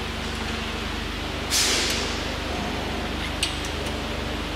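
A sharp hiss starts about one and a half seconds in and fades away over about a second, over a steady low hum. A few faint metal clicks come later, as a hex key works a bolt on the machine's metal bracket.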